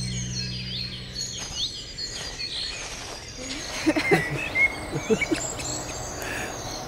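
Small birds chirping and singing, with the last of a music track dying away in the first second or so. A cluster of short, louder sounds comes through in the middle.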